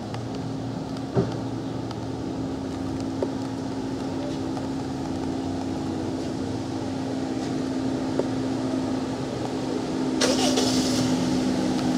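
Street traffic with a vehicle engine running close by, a steady hum with a held tone. There are a few sharp clicks, and a short hiss of about a second near the end.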